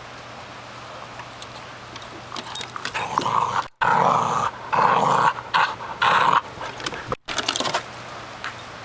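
A dog snarling and growling in several loud, harsh bouts over a few seconds, starting about two and a half seconds in.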